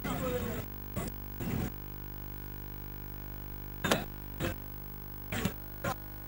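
A steady electrical hum runs throughout. Over it come a noisy burst at the start and about six short, sharp knocks, the loudest about four seconds in.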